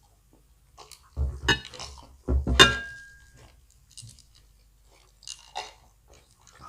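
Dishes knocking and clinking at the table, in two loud clusters about a second apart, the second with a brief ringing clink; faint chewing and smaller clicks follow.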